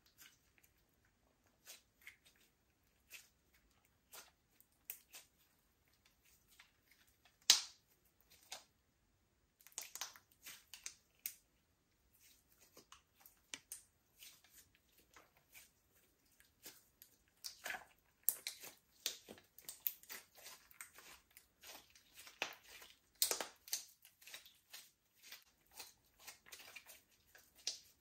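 Slime being kneaded and stretched by hand, giving quiet, irregular sticky clicks and small pops, sparse at first and coming thicker in the second half, with one sharper pop about seven seconds in.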